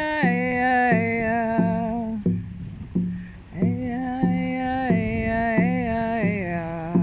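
A woman singing long wordless tones with vibrato, stepping down in pitch, in two phrases with a short pause between, over a hand drum beaten steadily about one and a half times a second.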